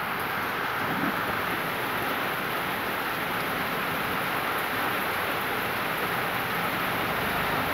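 Heavy rain pouring steadily onto a waterlogged street, a constant hiss of downpour splashing on standing water.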